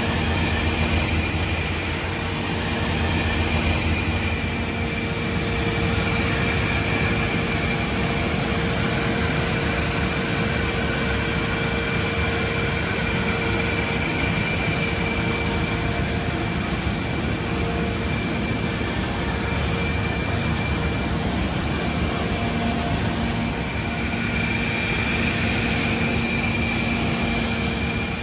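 Steady aircraft turbine noise on an airport apron: a constant high whine over a broad, even rumble, with no single event standing out.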